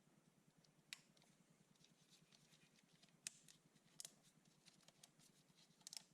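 Near silence with a faint low hum and four or five faint, sharp clicks spread through it.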